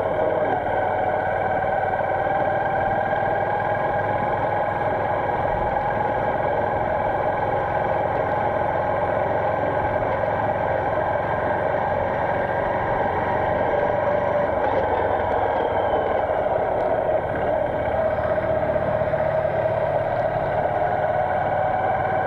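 Motorcycle engine running while riding: a steady drone whose pitch drifts slowly down and back up with road speed.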